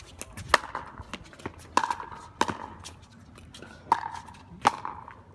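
Pickleball rally: sharp, hollow pocks of paddles striking the plastic ball, about one every second, with fainter ticks in between.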